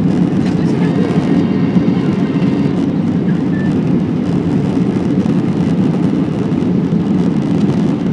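Steady cabin noise inside an Airbus A320 on approach: the low, even rush of its jet engines and the airflow over the fuselage.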